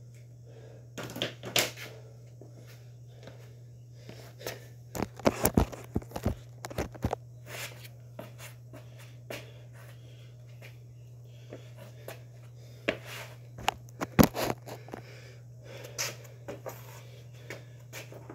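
Footsteps and scattered knocks and clunks of a person moving about among gym weights, over a steady low hum. The knocks come in clusters, the loudest about 14 seconds in.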